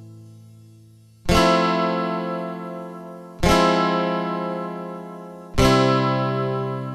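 Background music: three slow chords struck about two seconds apart, each left to ring and fade out.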